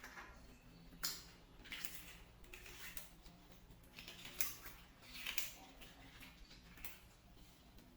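Water balloons being handled: a string of short, faint squishing and splashy sounds, roughly one every second or so.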